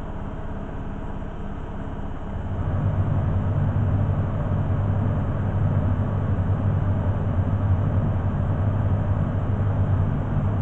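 Beko front-loading washing machine running with its drum turning: a steady low hum that gets louder about two and a half seconds in.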